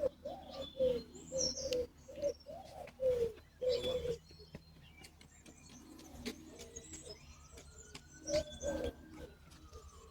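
A dove cooing in a run of short low notes through the first four seconds, with small songbirds chirping faintly in high notes.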